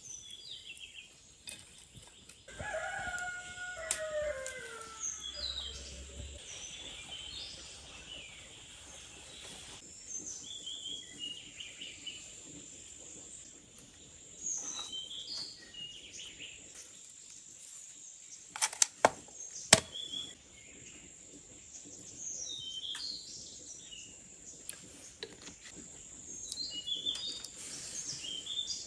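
Small birds chirping again and again over a steady high insect whine, with a farmyard fowl giving a long falling call about three seconds in. A few sharp clinks of a spoon against a ceramic bowl come in the middle.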